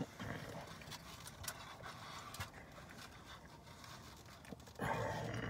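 Faint scattered clicks, taps and rustling from handling tacos, wrappers and limes while eating. About five seconds in, a louder low murmur starts.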